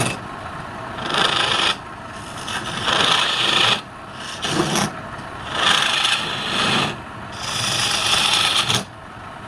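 Four rasping passes of a tool across wood on a lathe, each lasting about a second, with short quiet gaps between them.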